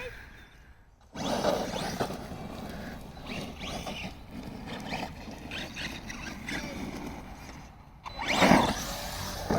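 Team Associated Rival MT10 RC monster truck's electric motor whining as it revs up and down, throttle blips that throw the truck into backflips. A louder rev near the end.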